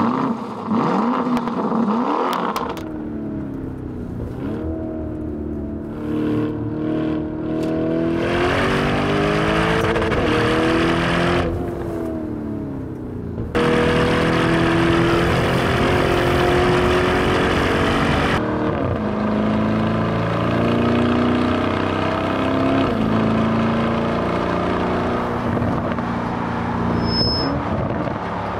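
Lamborghini Urus twin-turbo V8 engine revving and accelerating hard through the gears, its pitch climbing and falling back with each upshift. It opens with a sudden loud burst.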